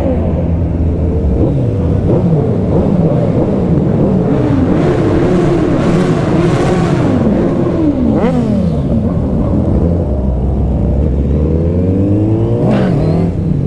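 Superbike engines, the loudest the rider's own Suzuki Hayabusa inline-four, revving up and down again and again at low road speed. The pitch rises and falls many times with several engines overlapping, and the sound turns rougher and more echoing in the middle while passing through a concrete underpass.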